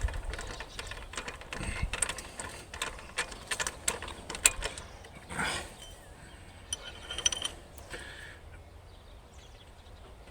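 Ratchet wrench clicking in quick runs as a spark plug is turned in the engine's cylinder 3 plug well, thinning out to a few clicks after about five seconds.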